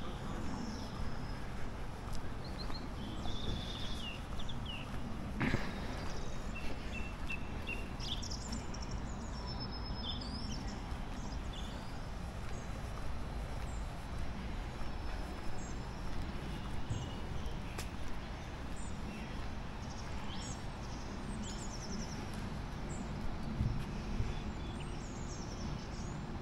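Outdoor ambience: small birds chirping on and off over a steady low background noise, with a single sharp knock about five and a half seconds in.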